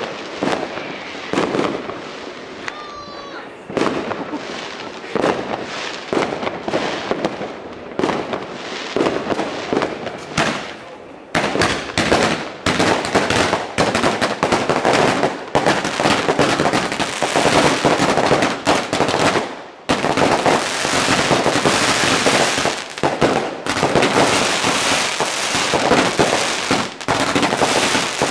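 New Year's Eve fireworks going off: a run of separate sharp bangs and cracks, then about eleven seconds in a dense, continuous crackling barrage that pauses briefly near twenty seconds and starts again.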